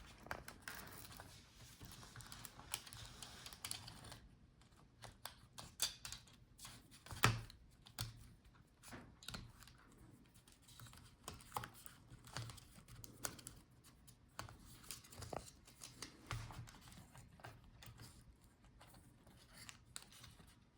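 Faint, irregular clicks and taps of a laptop battery and its nearby speaker wires being handled and worked free of the plastic chassis by hand, with one sharper click about seven seconds in.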